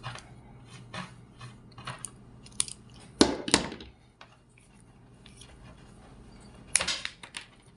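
Crimping tool's cutter and UTP cable being worked to strip off the cable's outer plastic jacket: scattered clicks, snips and scrapes, loudest about three seconds in and again near the end.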